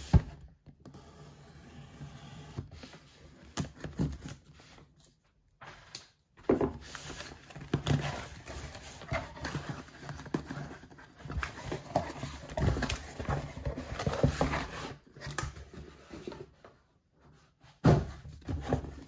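A cardboard shipping box being cut open and unpacked by hand: a knife slitting packing tape, then scraping, rustling and knocks of cardboard flaps and packaging, broken by a few short pauses.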